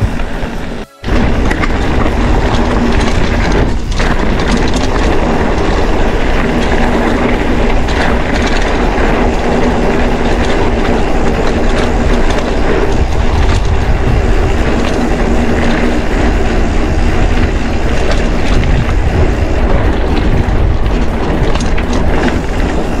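Mountain bike ridden fast down a rough dirt road: wind rushing over the camera microphone, with the tyres rumbling and the bike rattling over the uneven surface. A brief gap about a second in.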